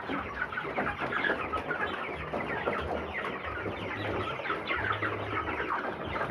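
A large flock of broiler chickens calling all at once: a dense, continuous chatter of short falling peeps and clucks, with a low steady hum underneath.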